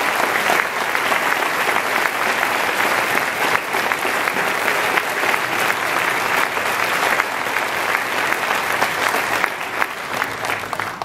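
Audience applauding, a dense steady clapping that thins and dies away near the end.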